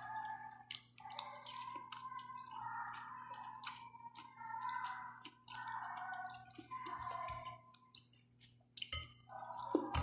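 Close eating sounds: a person chewing and slurping noodles, with many small wet clicks and smacks.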